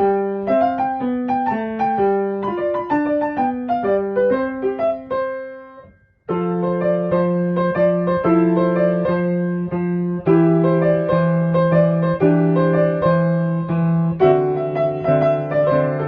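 Background piano music. One piece fades out about six seconds in, and another piano piece starts right after.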